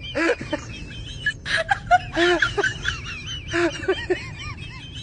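Birds calling: a steady wavering, warbling whistle with repeated short squawking calls.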